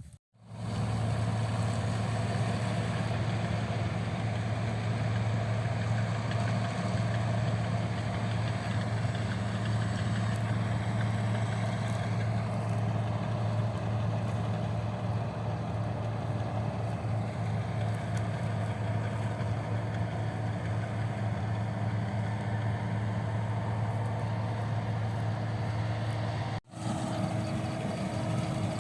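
An engine running steadily, a constant low hum. It drops out for an instant about 26 seconds in, then carries on with a slightly different, higher tone.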